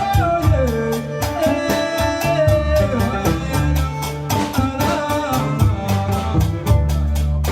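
Gnawa music: sharp percussive clacks in a fast, even rhythm over a low bass line, with a sung melody that glides up and down. It starts abruptly at a cut.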